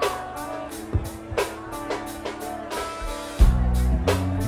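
Live rock band playing, with drum kit and cymbal hits over sustained guitar notes. About three and a half seconds in, the band comes in louder with heavy bass.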